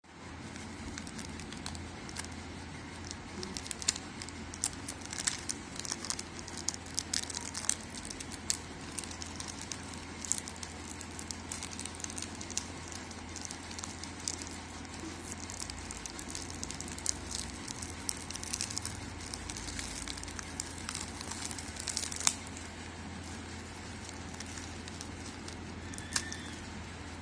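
Plastic packaging crinkling and crackling as it is handled and torn open, in dense irregular bursts that thin out near the end, over a steady low hum.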